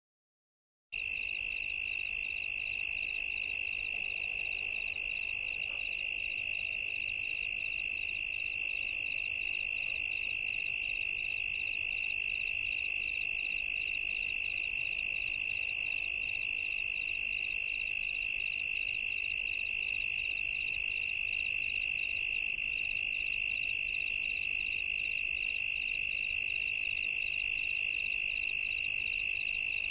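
A steady high-pitched electronic tone with a regular fast pulsing just above it, alarm-like. It cuts in suddenly about a second in and holds unchanged.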